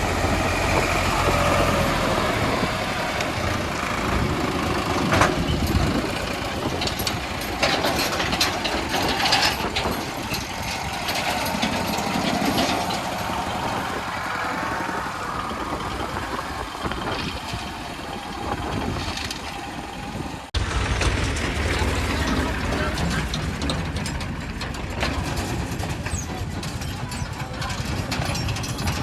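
Motor vehicle engines idling and running in mixed road traffic, with scattered clicks and knocks. An abrupt cut about two-thirds of the way through brings in a heavier, steady low engine rumble.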